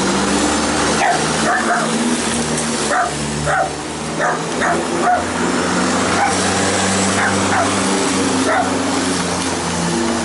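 Dogs barking and yipping over and over above the steady hum of an electric lawnmower motor running, its pitch shifting now and then.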